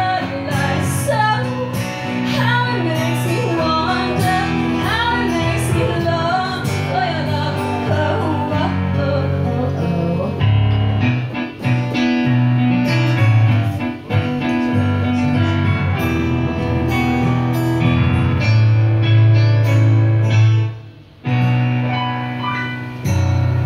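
Live acoustic song: a woman singing over her own digital piano, with an acoustic guitar playing alongside. Her voice fades out about halfway, leaving piano and guitar chords, and the music almost stops for a moment shortly before the end.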